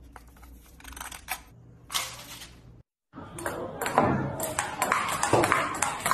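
A table knife scraping butter across crisp toast, louder once about two seconds in. After a short break, a table tennis ball clicks in quick succession off paddle and table in a fast rally.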